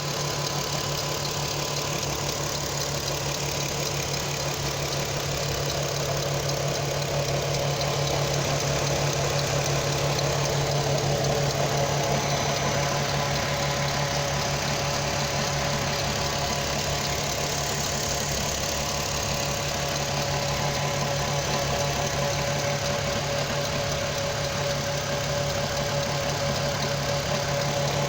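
Audi TT's 3.2-litre VR6 engine idling steadily with a fast, even ticking, listened to at the timing chains to trace the tick.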